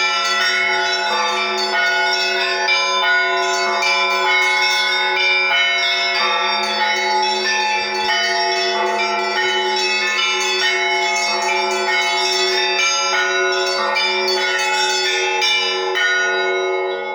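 Russian Orthodox church bells rung together in a fast, dense peal. Small bells are struck in quick succession over the steady ringing of the larger bells, and the peal stops right at the end.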